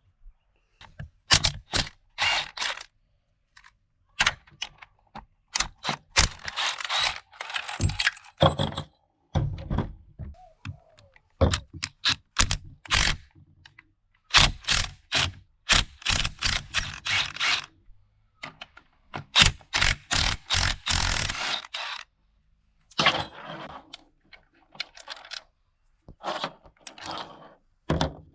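Metal transmission parts and hand tools knocking and clunking against each other, many sharp knocks in irregular runs. Several longer stretches of metal scraping come in between.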